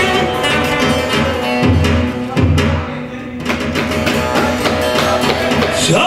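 Amplified bağlama (long-necked Turkish saz) strummed and picked rapidly with a plectrum in an instrumental passage between sung verses, over a low pulsing beat. A man's singing voice comes back in right at the end.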